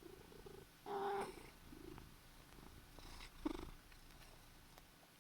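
A sleepy pet cat purring, with a few short murmuring sounds; the loudest come about a second in and again about three and a half seconds in.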